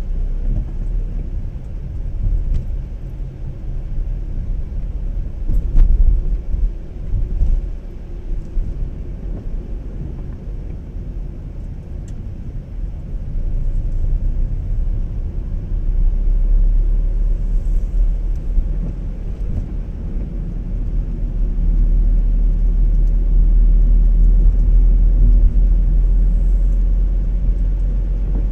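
Road and engine rumble heard inside a moving car's cabin, a steady low noise that grows louder about halfway through as the car picks up speed on the open road, with a few louder knocks early on.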